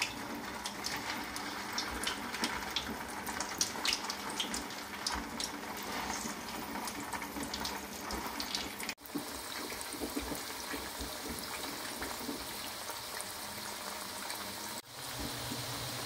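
Taro root (arbi) pieces par-frying in hot oil in a wok: a steady sizzle with many sharp crackling pops in the first several seconds, settling to a smoother sizzle later.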